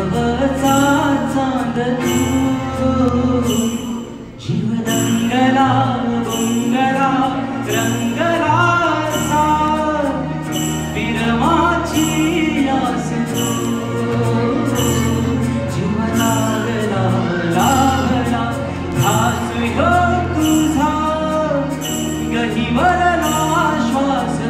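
Live Marathi song performance: a male singer sings the melody over a band of tabla, flute, guitars and keyboard, with a steady, evenly repeating percussion beat. The music briefly drops back about four seconds in, then picks up again.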